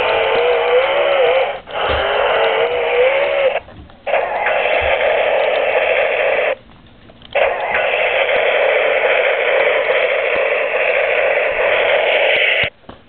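Electronic sound effects from a Hess toy truck's small built-in speaker: tinny rushing noise in several bursts a few seconds long, each stopping abruptly. In the first bursts a wavering tone rises and falls over the noise.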